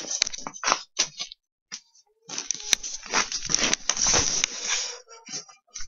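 Rustling and crunching with scattered clicks: a few sharp clicks in the first second, then a dense rustle for about two and a half seconds in the middle.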